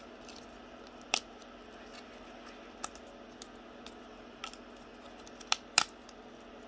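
Small plastic and card toy pieces clicking and tapping as they are handled and set down on a table, with a sharp click about a second in and two louder ones close together near the end, over the steady hum of a room heater.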